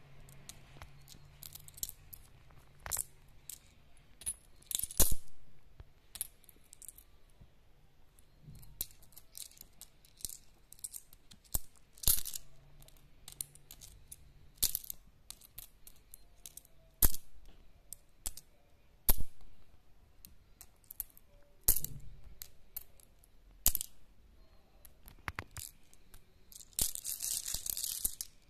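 Pakistani rupee coins clicking and clinking as they are picked up one at a time and dropped onto others in a palm, in sharp irregular clicks with a few louder ones. Near the end comes a longer jingle as the handful of coins shifts in cupped hands.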